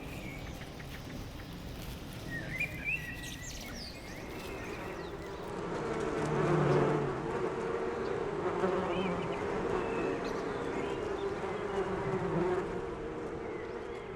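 Honey bees buzzing, swelling louder about five seconds in and then holding steady, with a few short bird chirps near the start.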